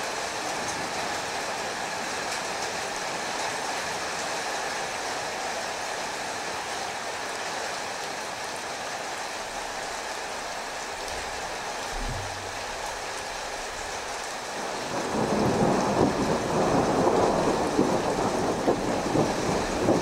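Thunderstorm: steady rain hiss, a short low rumble of thunder about twelve seconds in, then the rain grows louder and heavier about three quarters of the way through.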